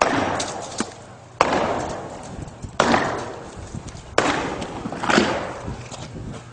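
Sledgehammer blows striking a silo wall: a run of heavy strikes about one every second and a half, each ringing off with a long echoing decay.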